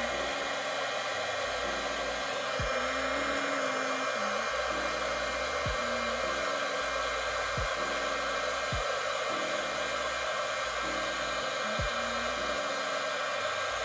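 Small handheld heat gun blowing steadily on a GoPro Hero 8's case, heating it to soften the glue that holds the camera together.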